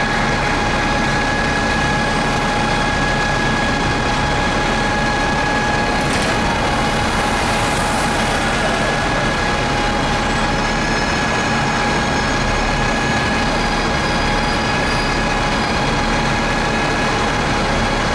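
Vehicle engine idling in street traffic: a steady hum with a constant whine over it.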